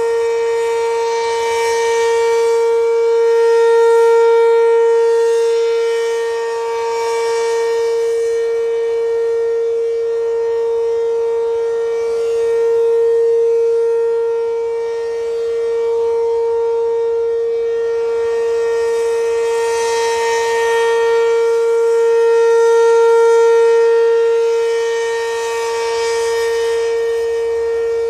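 ACA P-15 outdoor warning siren sounding a steady alert signal: one held, unchanging pitch that is extremely loud and swells and fades about every nine to ten seconds.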